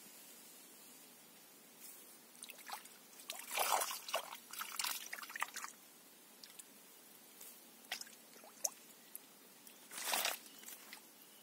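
Grass rustling and crackling in irregular spurts where a grass snake moves through it with a fish: a busy run of rustles about two to five seconds in and a shorter burst near the end.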